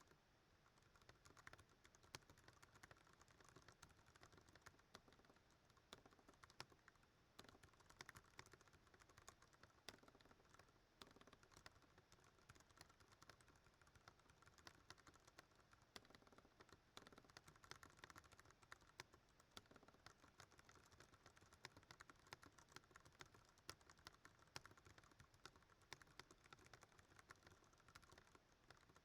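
Typing on a Ducky One 2 Mini mechanical keyboard with Cherry MX Brown switches: a quiet, rapid, unbroken stream of keystroke clicks at typing-test speed.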